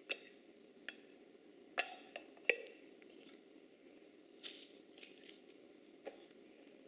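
Plastic toy teapot and cup being handled: a handful of light clicks and knocks, the loudest pair about two seconds in.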